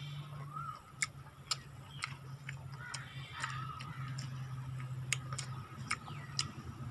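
Mouth sounds of eating by hand: sharp lip smacks and clicks at uneven intervals, about nine of them, over a steady low hum.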